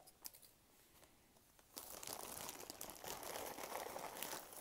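Hands rummaging in a bag of costume jewelry: a dense rustling crackle with many small clicks of pieces knocking together, starting about two seconds in after a quiet start.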